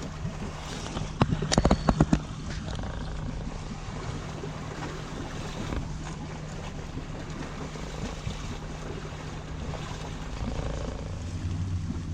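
A yacht's engine running steadily at low speed under way, with wind and water noise. About a second in there is a quick cluster of sharp knocks.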